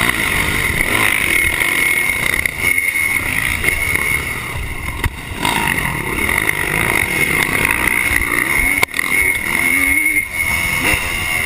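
1986 Honda CR250 single-cylinder two-stroke motocross engine running hard under racing load, heard close up from a camera worn by the rider, the throttle opening and closing with brief drops in revs a few times.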